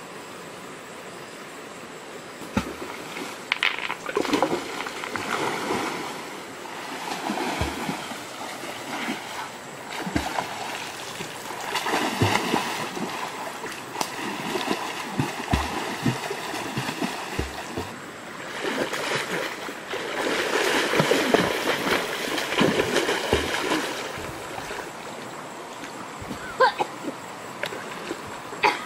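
A person splashing in a shallow river, water churning in repeated bursts with dull thuds for about twenty seconds, easing off near the end.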